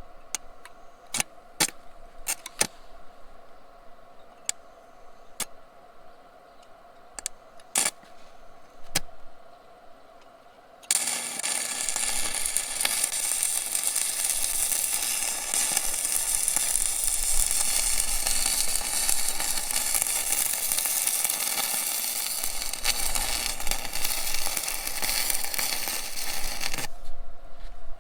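Electric welding arc, running steady and crackling for about sixteen seconds, as a washer is welded onto a twisted-off bolt stub so that the bolt can be turned out. It starts suddenly about eleven seconds in and cuts off near the end, after a run of scattered sharp clicks.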